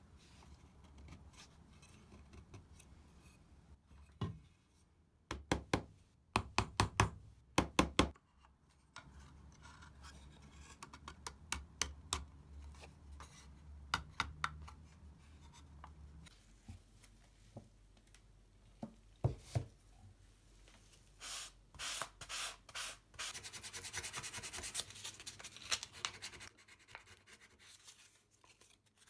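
Wooden dividers being handled and fitted into the slots of an oak drawer frame: a knock, then clusters of sharp wooden taps and clicks. Near the end comes a run of quick, regular strokes of sandpaper rubbing on wood.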